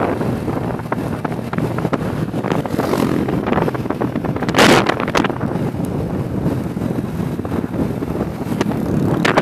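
Wind buffeting the microphone on a moving motorcycle, with the motorcycle running along underneath it; a louder gust hits about halfway through.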